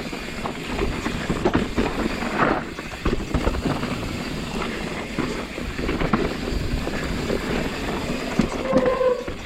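Mountain bike descending a rough downhill trail: tyres rumbling over dirt and rocks, the bike rattling with many quick knocks, and wind buffeting the microphone. A brief squeal near the end.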